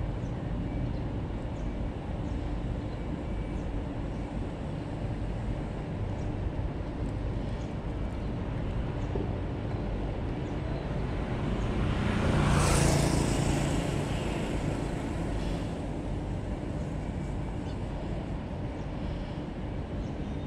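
Steady street ambience with traffic hum. A little past halfway a motor vehicle passes close by, rising and fading over about three seconds.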